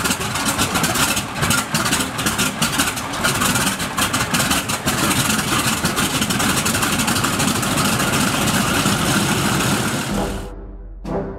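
Curtiss SB2C Helldiver's big radial engine, a Wright R-2600 Cyclone 14, running on the ground with its propeller turning. It is loud and uneven with rapid popping for the first few seconds, then settles into a steadier run. Near the end the engine sound drops away and a timpani hit of orchestral music comes in.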